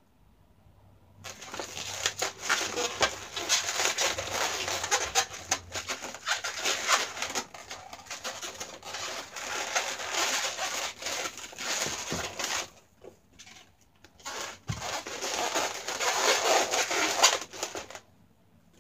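Latex modelling balloons twisted and woven by hand: rubber squeaking and rubbing against rubber in a dense, crackly run. There is a break of about two seconds past the middle, and the sound stops just before the end.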